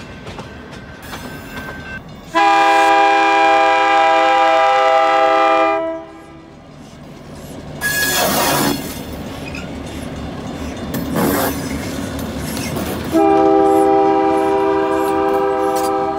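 Locomotive horn sounding two long blasts about ten seconds apart, each a steady chord of several tones lasting over three seconds. Between them a passing train rumbles and clacks over the rail joints, with two brief hisses.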